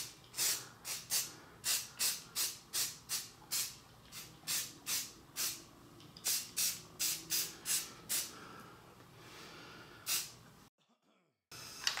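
Aerosol spray paint can spraying black paint in quick short puffs, two or three a second for about eight seconds, then a few slower, fainter ones.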